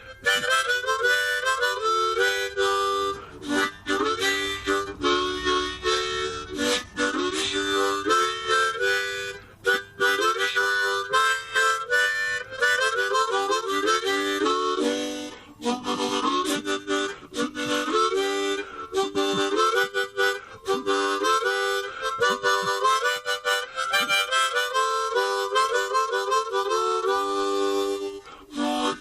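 Background music led by a harmonica playing a melody, with some guitar beneath it.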